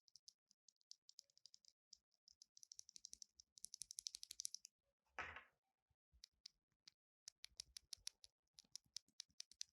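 Mechanical keyboard keys with red linear switches pressed one after another, giving faint clacks: a fast run of presses in the first half, then slower single presses of about three a second. A brief soft rustle falls about five seconds in.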